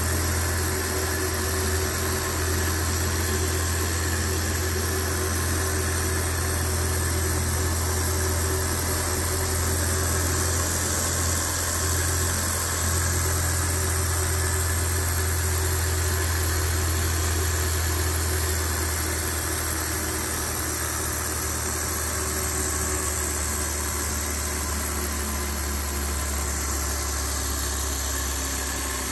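A model 16-cylinder swashplate Stirling engine running steadily: a continuous mechanical whir over a low hum. The hum eases slightly in pitch and level about two-thirds of the way through.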